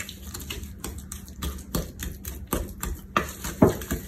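A spoon knocking and scraping against a mixing bowl in quick strokes, about three or four a second, as butter, cream cheese and sugar are creamed together by hand. The loudest knock comes near the end.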